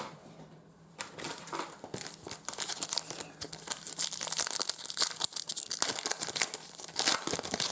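Crinkling and tearing of a trading card pack's wrapper being torn open and handled by hand, a dense crackle that starts about a second in.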